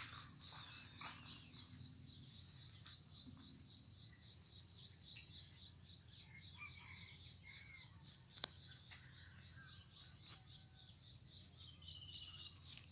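Near silence: faint outdoor ambience with scattered distant bird chirps and a quick high twitter near the end, plus a single sharp click about eight seconds in.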